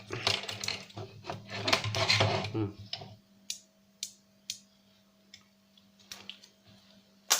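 Plastic and metal parts of a DVD player being handled and pried at during disassembly: about three seconds of busy clattering and scraping, then scattered sharp clicks, with a louder one near the end.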